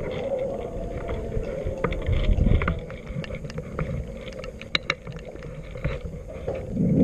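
Low rumble of wind and handling noise on a rifle-mounted camera as it moves, with scattered short clicks and knocks.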